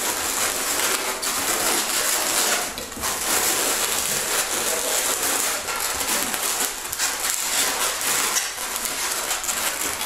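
260Q latex modelling balloons rubbing and squeaking against one another as they are twisted together by hand, a continuous run of short scratchy squeaks.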